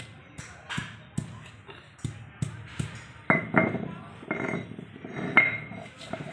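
A stone pestle knocking and pounding on a stone grinding slab (shil-nora) to crush ginger and garlic, about two strikes a second. Several strikes, the loudest just past the middle and near the end, give a short ringing clink of stone on stone.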